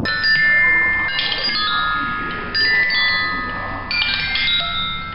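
Glockenspiel metal bars struck at random by a spinning object dangling on a string, in uneven clusters of notes about once a second, each ringing on and overlapping the next like a wind chime.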